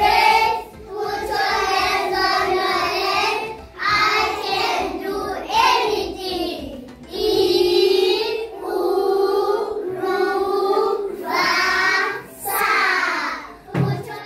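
A group of young children singing together in unison, in drawn-out phrases of a second or two with short breaks between them, as part of a sound-based vocal exercise.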